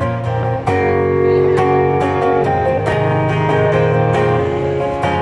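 Acoustic guitar played through a PA speaker, picking and strumming a sequence of chords with a full bass.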